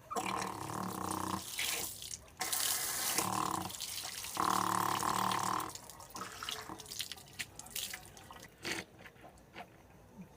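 Water running from a tap in three bursts while rinsing after brushing teeth and washing the face, followed by scattered small splashes and drips.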